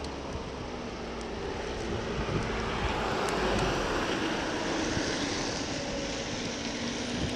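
A car overtaking a bicycle from behind: a steady whoosh of tyres and engine swells about two to three seconds in and stays up as the car passes and pulls ahead, over a low rumble of the bike's own ride.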